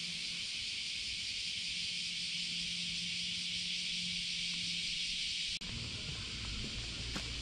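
Steady high-pitched hiss of outdoor ambience with a faint low hum. About five and a half seconds in it changes abruptly to a weaker hiss with wind rumble and a few faint knocks.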